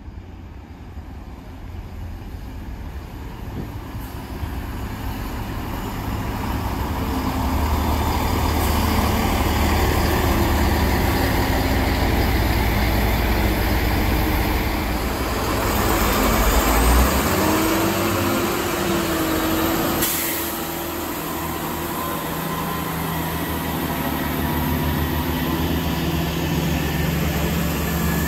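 GWR diesel multiple units at a platform: a Class 166 Turbo's diesel engines and wheels on the rails growing louder as it draws in. Partway through comes a wavering squeal, then a sharp click, then the steady running note of a diesel unit moving alongside the platform.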